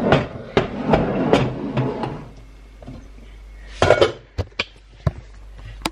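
Kitchenware clattering: pots, lids and utensils knocking and clinking together, densely for the first two seconds, then a louder clatter near the middle and a few separate sharp knocks.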